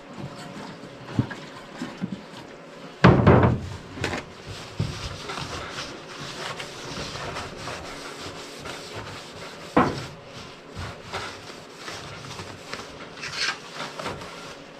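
Rag rubbing over the sanded hood as it is wiped down with wax and grease remover, broken by a loud knock about three seconds in and a smaller one near ten seconds as things are handled and set down.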